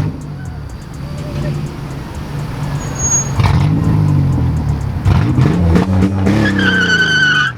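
Chevrolet Camaro engine revving up and down repeatedly under hard driving, as in donuts, with a high steady tire squeal near the end.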